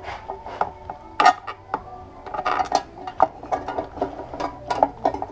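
Sheet-metal battery box and its cover plate clinking and knocking as they are handled and pressed together by hand, a string of irregular sharp clicks. Music plays quietly underneath.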